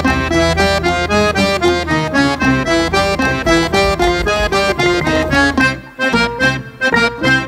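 Small folk-instrument ensemble led by an accordion, with guitars and drums, playing a fast instrumental introduction: quick runs of melody over a steady bass. About six seconds in the bass drops away and the band plays short, detached chords.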